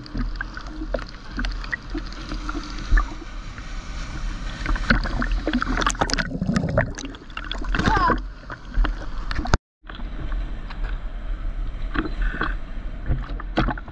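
Seawater sloshing and splashing around a GoPro Hero 9 in its waterproof housing at the water's surface, over a constant low rumble. The sound cuts out for a moment about two-thirds of the way through.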